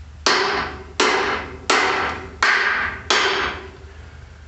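Five hammer blows on steel, about 0.7 s apart, each ringing briefly, as a stiff truck part is driven into place.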